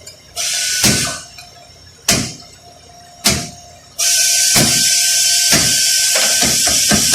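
Three sharp metal strikes about a second apart, a hammer tapping a seal installer on the transmission pump. About halfway through, a loud steady hiss starts and runs for nearly four seconds, with rapid irregular clicks in it.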